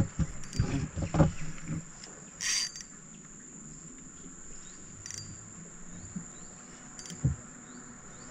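Insects in the riverside vegetation making a steady high-pitched drone, with a few knocks near the start and a short hiss about two and a half seconds in.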